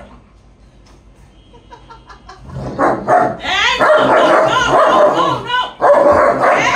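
Dogs play-fighting: a long-coated German Shepherd and another dog break into loud, rough growling and barking about two and a half seconds in, after a quiet start.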